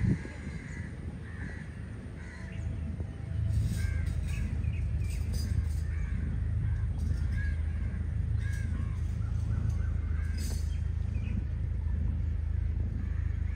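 Birds calling repeatedly in short calls over a steady low hum, which grows louder about three seconds in.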